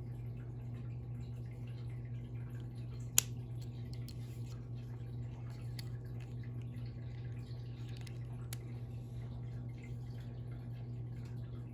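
A few small clicks from the AirPods and their packaging being handled, one sharp click about three seconds in and fainter ones after it, over a steady low hum.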